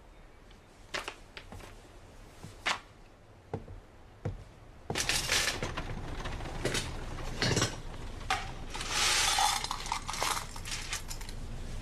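A metal pan and dishes clinking and clattering as goods are handled at a shop counter. The first half holds only a few isolated knocks; the clatter starts about halfway in, with a longer rattling, shuffling stretch near the end.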